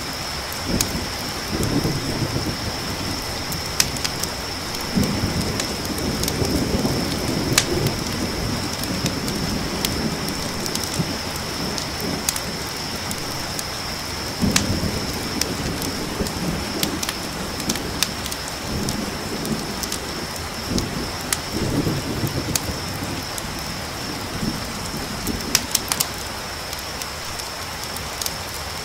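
Steady rain with low thunder rumbling in several rolls, over a continuous high-pitched cricket trill. Sharp crackles of a campfire pop through it.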